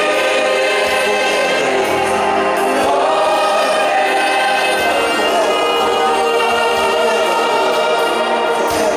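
Live gospel worship music: a male worship leader singing into a microphone over a group of backing singers, with a saxophone and band accompaniment.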